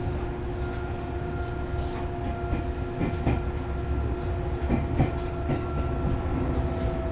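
Electric commuter train running, heard from inside the carriage: a steady rumble with a motor whine that falls slowly in pitch, and several wheel clacks over rail joints around the middle.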